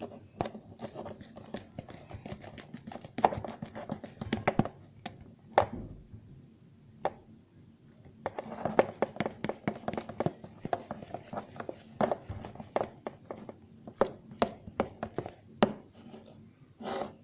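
Sticky homemade shampoo-and-toothpaste slime being worked: a fast run of wet smacks, squelches and taps, busy at first, sparser for a couple of seconds around the middle, then busy again.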